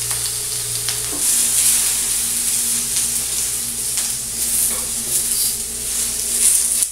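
Chopped onion and green bell pepper sizzling in lard on a hot flat griddle, a steady frying hiss, with a spatula stirring and scraping the pieces across the plate.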